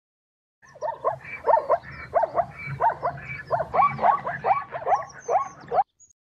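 Spotted hyena calling: a series of about a dozen short notes that slide in pitch, roughly two a second, starting just under a second in and stopping abruptly near the end.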